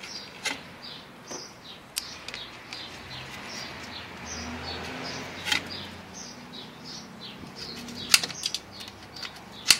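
Scattered sharp clicks and knocks of hands handling engine parts, the loudest ones near the end. Small birds chirp over and over in the background.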